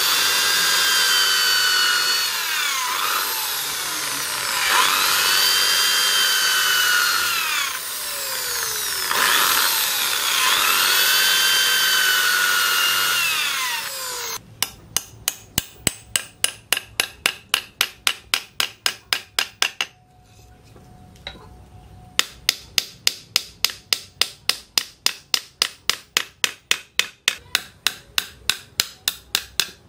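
Corded electric drill boring through wooden knife-handle scales, its whine rising and falling as the bit bites and eases. About fourteen seconds in it stops and a small hammer starts rapid light blows, about five a second, peening the handle pins over on a steel anvil, with a brief pause in the middle.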